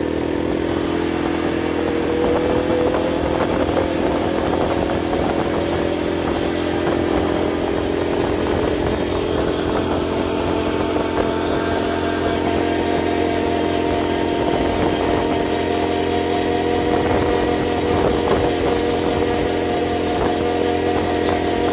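ATV engine running while under way. Its pitch climbs slowly over the first several seconds as it gathers speed, then holds nearly steady as it cruises.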